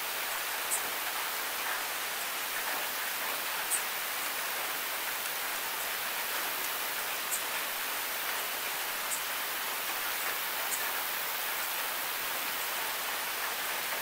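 Heavy rain falling: a steady hiss with a few sharp ticks of single drops scattered through it, several seconds apart.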